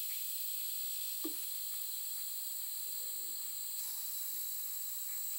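Hot air rework gun blowing a steady hiss over a circuit board to melt the solder on a suspect capacitor for removal, with one faint click about a second in.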